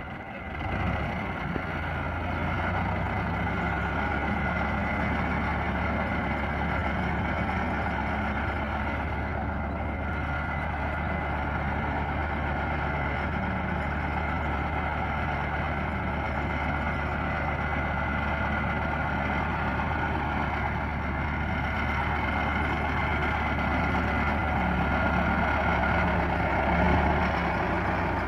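Dewan Foton tractor's diesel engine running steadily as it drives through a flooded canal, with water churning around its wheels. It gets louder near the end as the tractor climbs out close by.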